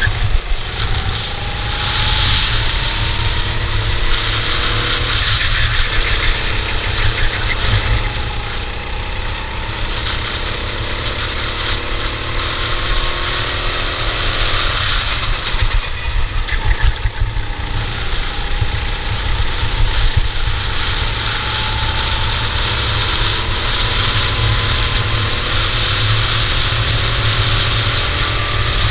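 Cadet racing kart engine running on a race lap. Its pitch climbs slowly for several seconds and drops back about five, eight and fifteen seconds in, then makes one long climb, over a heavy low rumble and hiss.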